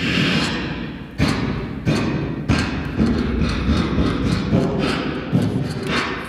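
Live beatboxing: a beat of deep kick-drum thumps with hissing snare and hi-hat sounds between them, the hits coming roughly every half second or so.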